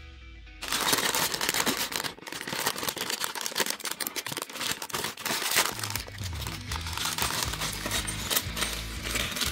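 Plastic crinkling and rustling, thick with small sharp clicks, as a bag of tiny building bricks is handled and torn open. Background music with a low bass line comes back in about six seconds in.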